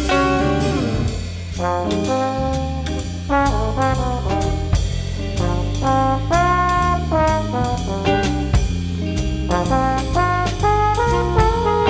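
Recorded jazz tune by a small band: brass horns play the melody over drum kit and bass, with one long held note a little past the middle.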